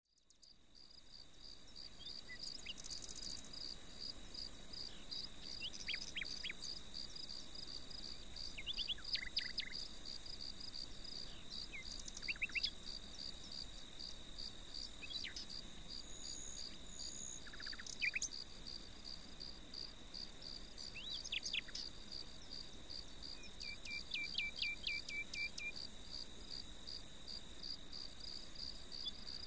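Steady chorus of summer insects: an even, pulsing buzz with a constant high hiss above it, fading in over the first couple of seconds. Short bird chirps break in now and then, with a brief trill near the end.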